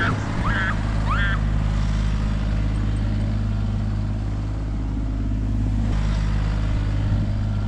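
Bobcat excavator's diesel engine running at a steady, even speed. A few short high-pitched shouts are heard in the first second and a half.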